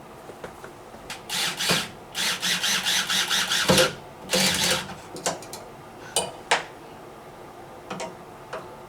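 Electric screwdriver run in three short bursts, the longest about a second and a half, followed by a few sharp clicks of parts being handled.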